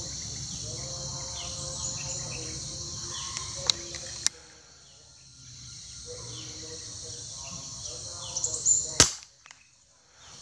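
Single shot from a suppressed Sharp Tiger multi-pump air rifle about nine seconds in, a sharp crack that is the loudest thing here; the spotted dove it was aimed at is hit and falls. Before the shot there is a steady high insect drone, with two sharp clicks about four seconds in.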